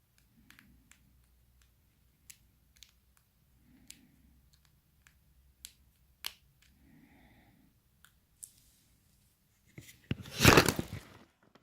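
Faint scattered clicks and taps of a small screwdriver and tiny screws being tightened back into an iPhone 6 during a screen repair. Near the end there is a brief, much louder scraping rustle.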